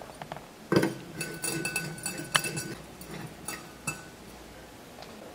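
Light clicks and glassy clinks as a grow lamp's glass bulb and metal screw base are handled and screwed into its socket. There is a sharp click a little under a second in and another about halfway through, with a faint high ringing tone between them.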